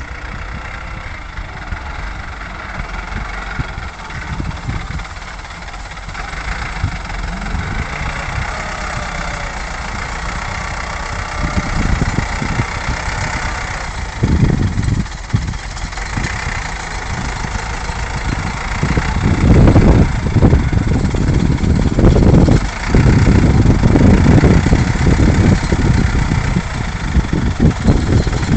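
Hürlimann H-488 Turbo Prestige tractor's turbo diesel engine running under load while pulling a mounted reversible plough through soil. It grows louder past the middle as the tractor passes close by, with an uneven low rumble.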